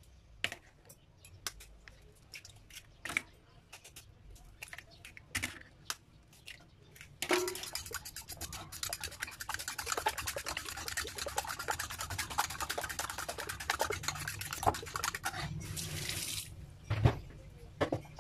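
Eggs being cracked into a bowl, with scattered taps and clicks of shell. About seven seconds in, a metal spoon starts beating the raw eggs fast, clicking steadily against the bowl for about nine seconds, and it ends with one knock near the end.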